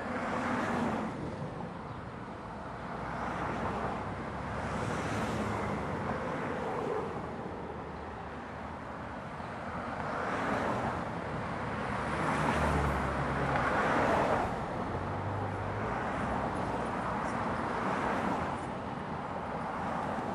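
Wind gusting on the microphone, swelling and fading every few seconds, over the low running of two light-rail trains creeping slowly toward the platform side by side, with a brief low hum about two-thirds of the way through.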